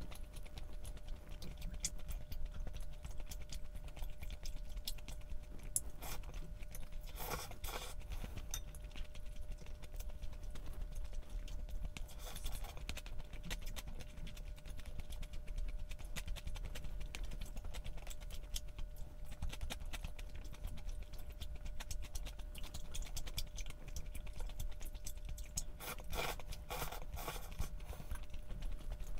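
Eating sounds: chewing with many small clicks and taps, which come in denser clusters about seven, twelve and twenty-six seconds in, over a steady low hum.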